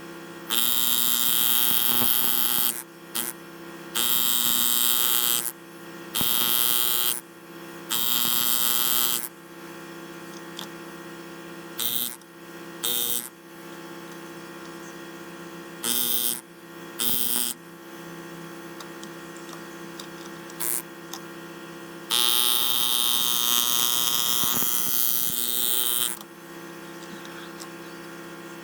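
A power tool's motor running with a steady hum, broken by repeated bursts of harsh, hissy noise as it works the material. The bursts range from brief spurts to runs of a few seconds, and the longest comes near the end.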